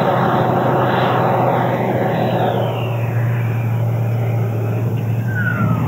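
Large RC jet model's JETFAN-120 PRO electric ducted fan running at high power on a fly-past, a dense rushing whine. About halfway through its pitch slides down and it gets a little quieter as the jet passes.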